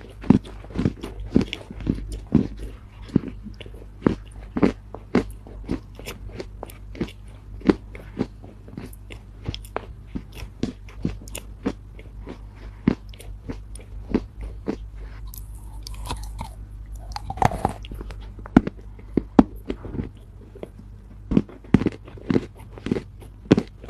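Chinese loess (dried earth) being bitten and chewed, giving sharp, irregular crunches a few times a second. A brief hissing rustle comes in about two-thirds of the way through.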